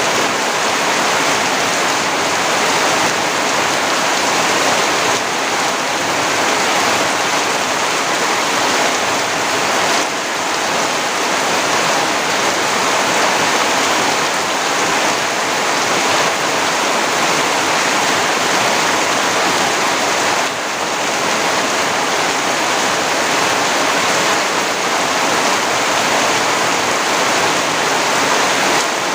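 Rain falling steadily, a dense, unbroken hiss of water.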